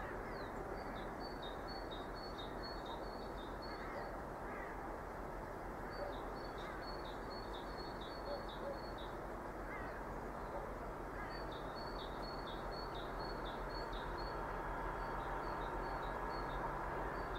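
A bird calling in three runs of short, high, repeated notes over a steady open-air hiss. Near the end a distant approaching train comes in faintly as a low, steady hum.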